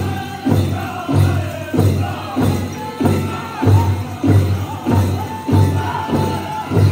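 Powwow drum group: a large bass drum struck in a steady beat, about one and a half beats a second, under the singers' voices, with one long held note near the end. Dancers' bells jingle along with the beat.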